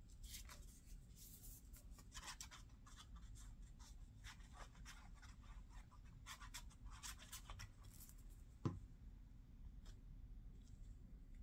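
Faint rustling and scratching of paper being handled on a tabletop, with one small knock about two-thirds of the way through.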